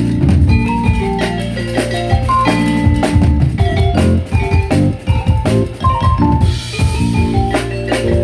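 A live fusion band playing: drum kit hits over a deep, steady bass, with quick runs of short melodic notes above.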